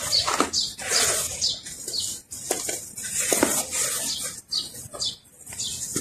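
Hands raking and squeezing dry, earthy sand full of hard clumps: irregular gritty rustling and crunching as the chunks crumble, in quick strokes with a short lull about two-thirds through.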